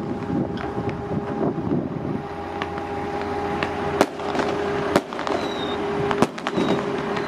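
Firecrackers going off: scattered sharp pops and cracks, with a few louder bangs about four, five and six seconds in, over a steady low hum.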